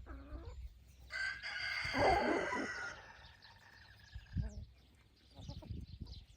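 A rooster crowing once, one long call of about two seconds, with hens clucking around it.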